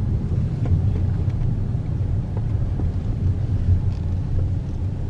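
A car's steady low engine and road rumble, heard from inside the cabin while driving.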